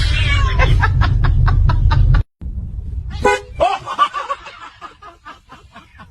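People laughing in quick rhythmic bursts over a low rumble, which cuts off suddenly. After it a short honk sounds, followed by more giggling that fades.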